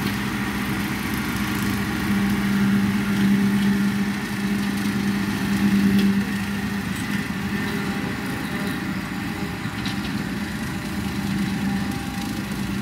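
John Deere compact utility tractor's diesel engine running steadily under load, pulling a 6-foot bush hog (rotary cutter) through tall grass. It is loudest a few seconds in and a little quieter from about halfway on as the tractor moves off.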